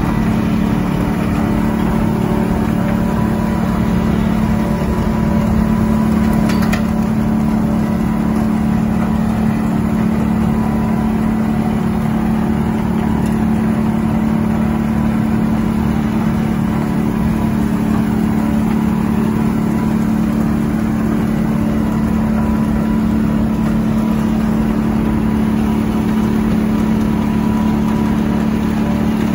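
A steady mechanical hum with a strong low tone and overtones above it, unchanging in pitch and level throughout.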